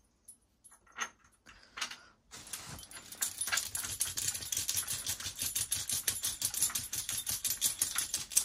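A few scattered light knocks, then about two seconds in a rapid, even clicking and rattling starts and keeps going: small metal hardware being worked while the back rail of a wooden crib is bolted to its end panel.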